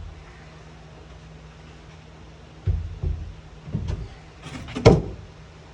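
Several knocks and bumps as shower enclosure pieces are handled and fitted, the loudest about five seconds in, over a faint steady low hum.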